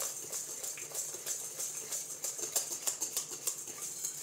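Wire hand whisk beating cake batter in a glass bowl: a rapid, uneven run of light clicks as the whisk strikes the glass.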